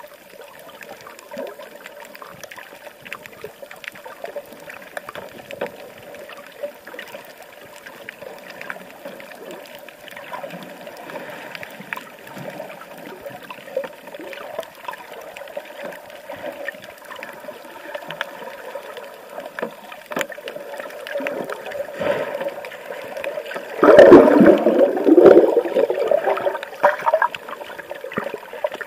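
Water trickling and gurgling, with a louder burst of splashing for a few seconds near the end.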